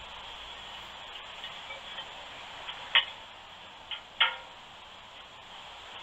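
Steady hiss with a few sharp, irregular clicks, the loudest about three seconds in and another just after four seconds.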